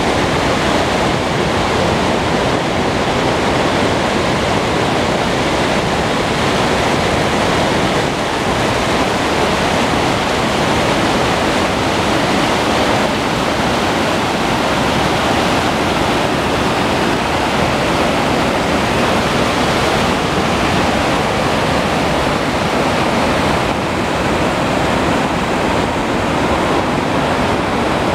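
A fast mountain river rushing over boulders in whitewater rapids: a loud, steady rush of water with no breaks.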